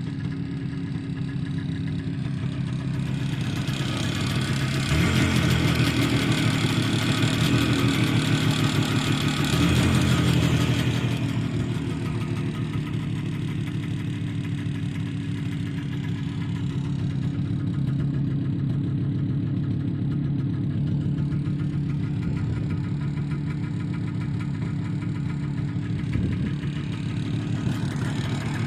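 IZh Jupiter motorcycle's two-cylinder two-stroke engine running. It is revved up for several seconds from about three seconds in, then settles back to idle. It carries a knock that the owner takes for a worn piston pin in the left cylinder.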